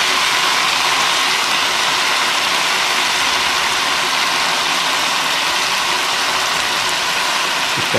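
Thin steaks frying in hot oil in a nonstick pan, searing on their second side after being flipped: a steady, even sizzle with a faint steady hum under it.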